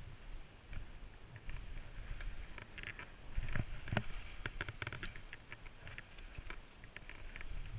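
Skis swishing and sliding through deep powder snow, with a low wind rumble on the helmet microphone and scattered short clicks and knocks, the sharpest about four seconds in.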